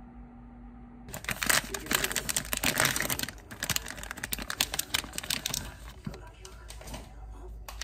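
Plastic food wrapper crinkling loudly and rapidly as a packaged cream bun is pulled out of it, starting about a second in. Near the end it gives way to quieter clicks and rustles as the clear plastic tray is handled.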